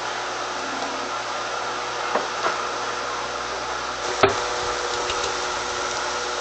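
Steady, even, fan-like hiss with a few light knocks; the sharpest and loudest knock comes about four seconds in.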